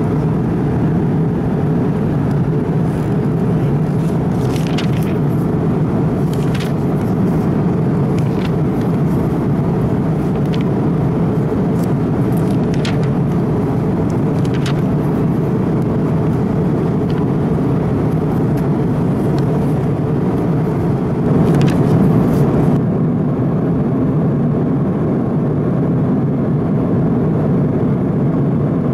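Steady cabin noise of an Airbus A330-200 in cruise: a loud, low, even rush of engines and airflow. A few brief rustles of a paper magazine's pages sound over it, and near the end the upper hiss thins out abruptly.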